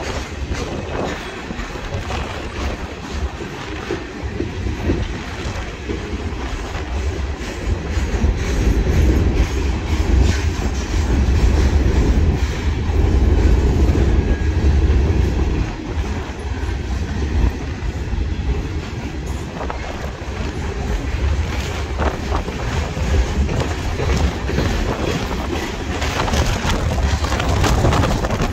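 Norfolk Southern freight train's boxcars and covered hoppers rolling steadily past, the steel wheels clicking over the rail joints under a continuous low rumble that swells loudest about halfway through. Wind buffets the microphone.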